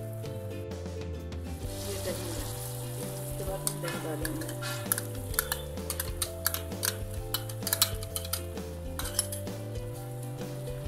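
Spice masala frying in oil in a pan, sizzling. The sizzle grows about two seconds in, and a wooden spatula stirs and scrapes it with a run of quick clicks and knocks against the pan from about four to nine seconds. Background music with held notes plays underneath.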